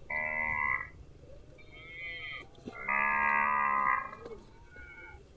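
Cow mooing in several separate calls: a short loud moo at the start, a fainter one about two seconds in, then a longer loud moo lasting about a second, and a faint short call near the end.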